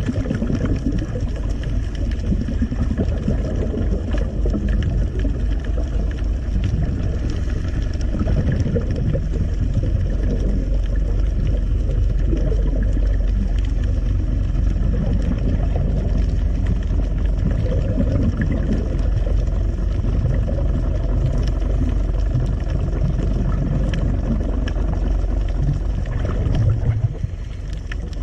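Boat engine heard underwater: a steady low rumble with thin, faint whining tones above it. It dips briefly near the end.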